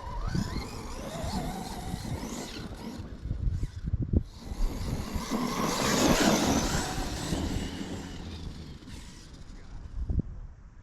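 Battery-powered RC basher car driving on dirt and gravel: the electric motor whines up and down with the throttle over the hiss of the tyres throwing gravel, loudest about six seconds in, with a couple of sharp knocks.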